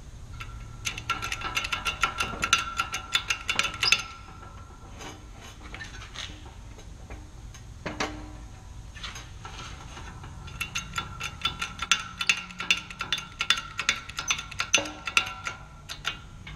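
Ratchet wrench clicking in two long runs of rapid clicks, with a short pause between them, while the bearing splitter is set up in a shop press.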